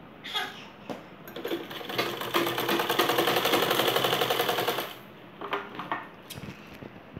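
Sewing machine stitching lace onto fabric. A few short runs in the first two seconds give way to a steady, fast stitching rhythm for about three seconds, which stops about five seconds in; a few light clicks follow.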